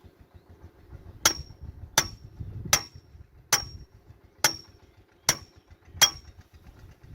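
Hammer striking metal seven times at an even pace, each blow leaving a short, high metallic ring.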